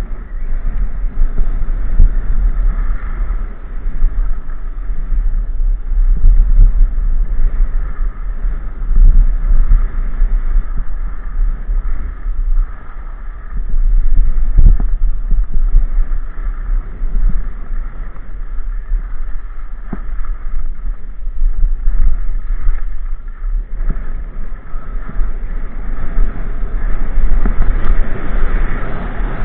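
Wind noise on the microphone of a camera worn while skiing downhill, rising and falling in waves, over the hiss and scrape of skis running on packed snow, with a few knocks from bumps.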